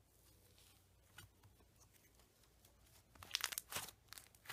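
Cloud dough slime being kneaded and pulled apart by hands: very faint for the first three seconds, then a short run of soft crackling, tearing sounds as it is stretched, and another just at the end.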